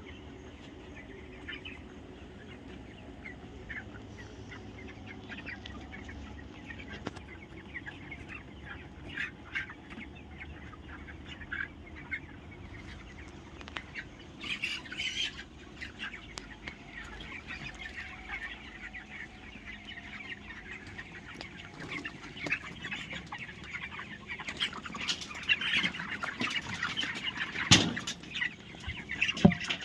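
A flock of chickens clucking, with many short sharp sounds among them. The flock has the cold that sets chickens sneezing. The sounds grow busier about halfway through and louder toward the end, with one sharp loud sound near the end.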